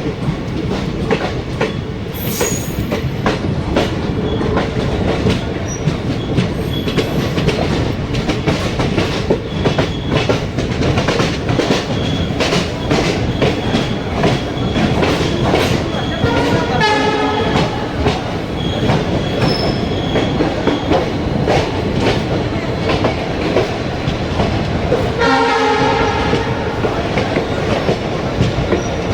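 Express train running on the rails, its wheels clattering steadily over rail joints. The train horn sounds twice, briefly about 17 seconds in and a little longer about 25 seconds in.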